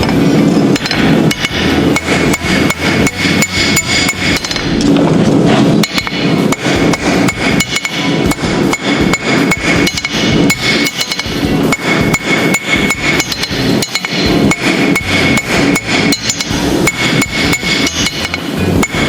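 Blacksmith's hammer striking 3/8 mild steel on an anvil to forge a letter opener: quick, regular blows, about three a second, with a steady metallic ring between them.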